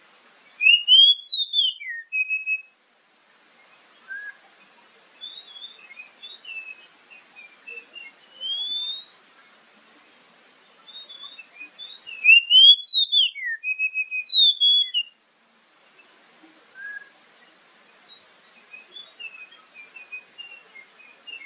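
Oriental magpie-robin singing: two loud phrases of rising and falling whistled notes, about a second in and again about twelve seconds in, with softer scattered chirps and whistles between.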